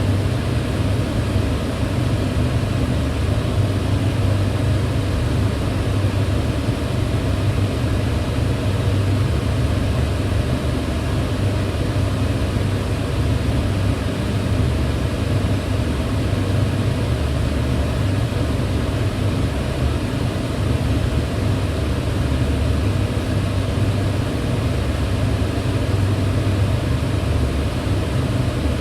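Kitchen range hood fan running steadily: an even rush of air over a low hum, unchanging throughout.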